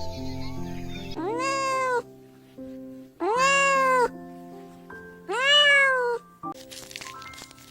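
A domestic cat meowing three times, each meow under a second and rising then falling in pitch, about two seconds apart, over background music.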